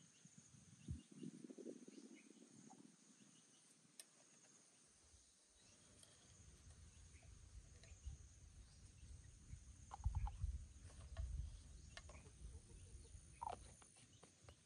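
Faint outdoor ambience: a steady high insect drone, a few short bird calls in the second half, and small clicks of a spoon scooping milk powder from a tin.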